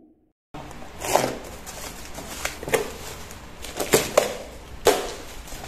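A knife slitting packing tape and cardboard on a shipping box, about half a dozen short sharp strokes over a light steady hiss.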